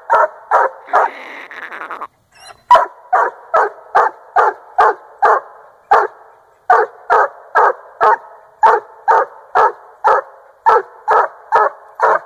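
Treeing Walker Coonhound barking at a treed raccoon: a steady run of short chop barks, about three a second, with a brief break about a second in. The rapid bark at the tree is the dog's tree bark, signalling that the coon is up that tree.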